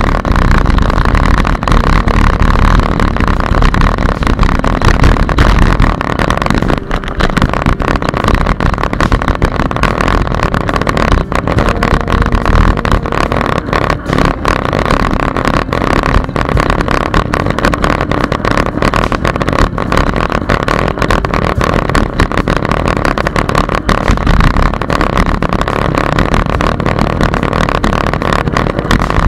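Wind rushing over the microphone of a camera on a moving bicycle, a loud steady roar, with frequent small rattles and knocks as the bike rides over the path surface.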